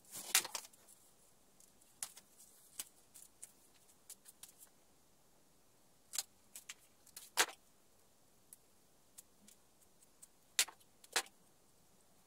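A knife cutting green grapevine shoots on a wooden board, along with small tools being handled: scattered sharp clicks and taps, loudest near the start and around the middle.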